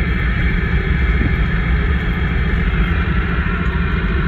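Steady low rumble of a car driving along, heard from inside the cabin, with a steady hiss above it.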